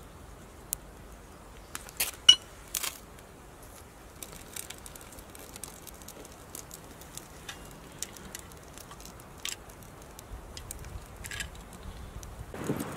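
Knife striking and scraping a ferro rod, a few sharp scrapes in the first three seconds. Then faint scattered crackling as the birch-bark tinder catches in a small wood-burning stove.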